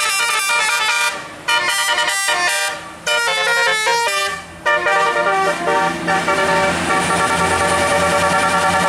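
Indonesian bus telolet horn, a multi-tone musical air horn, playing quick stepped melodies in short phrases broken by three brief pauses, then sounding on without a break from about halfway through. The bus's engine hums low beneath it in the second half.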